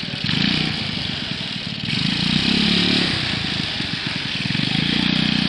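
Engine of a skid-steered machine running under load, its note swelling louder three times as it is driven and turned.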